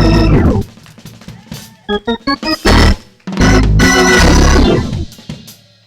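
Organ playing quick runs of notes and loud chords with heavy bass, dying away near the end.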